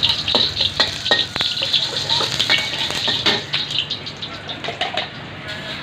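Fried rice sizzling in a hot wok while a metal spatula stirs it and clanks against the pan, with several sharp clanks in the first two seconds. The sizzle eases a little near the end.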